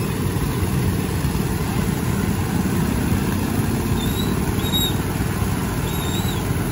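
Several small petrol-engine dewatering pumps running together, a steady low engine noise that does not change.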